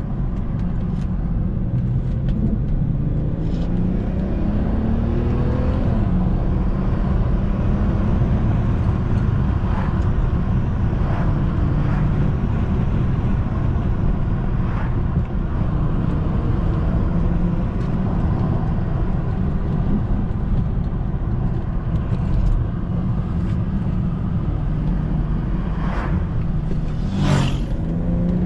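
2008 BMW 335i's N54 twin-turbo straight-six running on the road with tyre and road noise, climbing in pitch for a few seconds early on as the car accelerates, then holding steady. A short sharp noise near the end.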